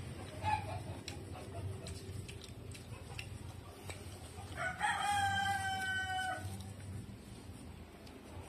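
A rooster crows once, about five seconds in, one long call lasting under two seconds. Before it come faint light clicks of a plastic spoon on food in a paper wrapper.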